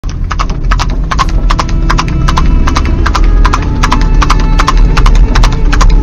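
Horse hooves clip-clopping at a steady trot, the hoofbeats landing in quick pairs, over a loud steady low rumble: a horse-drawn cart or chariot sound effect.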